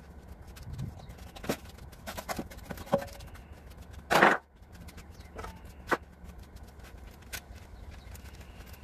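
Scattered knocks and clanks of a removed van front bumper and hand tools being handled on a concrete driveway, with one louder clatter about four seconds in.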